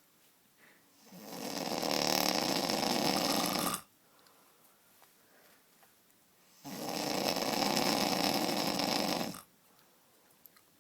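A man snoring heavily: two long snores, each close to three seconds, one starting about a second in and the other past the middle, each swelling up and then stopping abruptly.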